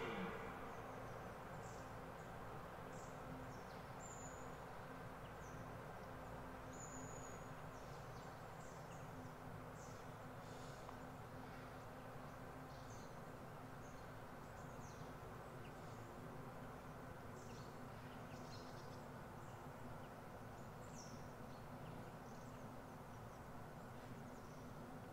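Faint, steady outdoor background noise, with a low steady hum that fades out about halfway and scattered faint, short high-pitched chirps.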